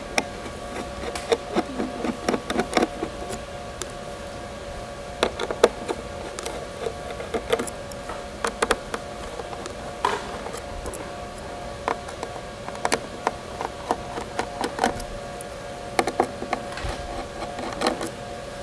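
Small screwdriver working the screws out of a Panasonic Toughbook CF-30's metal keyboard plate: irregular light clicks and scrapes of the driver tip on the screw heads and metal, over a steady hum.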